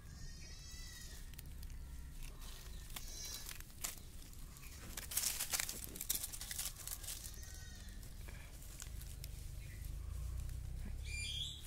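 An animal giving four short, high, wavering bleat-like calls spread a few seconds apart, with dry leaves crackling underfoot around the middle.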